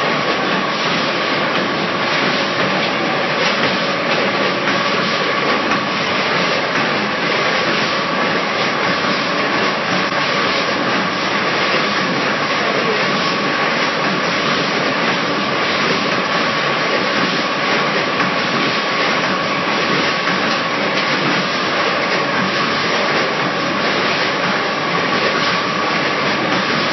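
Potato-chip packaging machinery with a weighing scale running continuously: a loud, steady mechanical din with a constant high hum through it.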